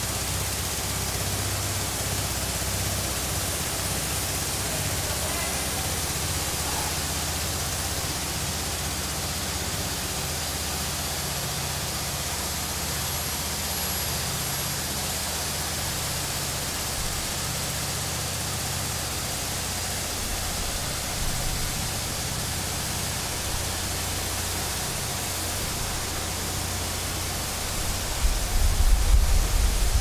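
The undersized engine that powers the silo doors' hydraulic system running steadily: a constant hiss over a low hum. Near the end a louder low rumbling starts.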